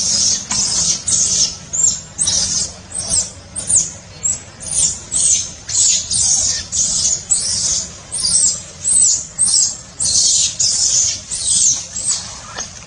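Infant macaque squealing over and over, high-pitched calls about two a second, stopping near the end.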